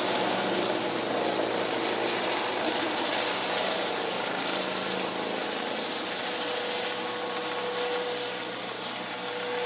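ADAC rescue helicopter with a fenestron tail climbing away after take-off: a steady turbine and rotor noise that slowly fades as it gains height.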